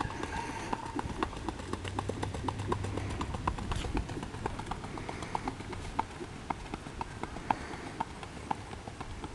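Hoofbeats of a gaited pinto pony being ridden at a fast rack on a dirt track: quick, even clip-clop in a steady rhythm.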